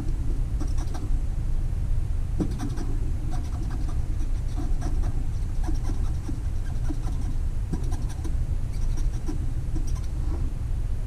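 Light scratching and clicking of small model locomotive parts being handled and cleaned, in short irregular bursts over a steady low rumble.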